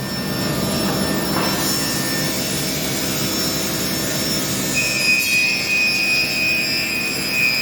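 Bandsaw running: a steady machine noise, with a high steady whine coming in about five seconds in.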